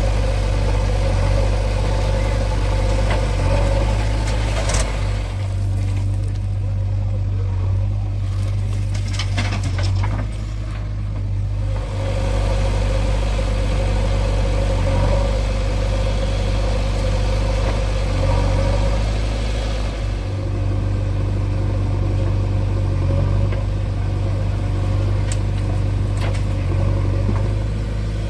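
Diesel engine of a JCB 3DX backhoe loader running steadily at work loading mud, a continuous low drone. It eases off for a few seconds early on, with a couple of knocks from the machine.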